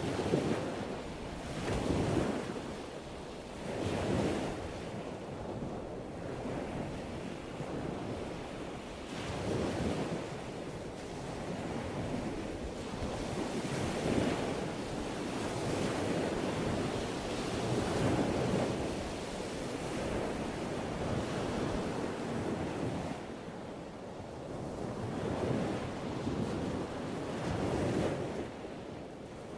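Ocean surf: waves washing in as a rushing noise that swells and falls back every few seconds.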